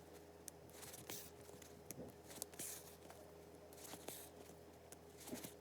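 Faint hand-sewing: thread drawn through fabric with a soft hiss about every second and a half, with small clicks and crunches from handling the rice-filled fabric door stopper.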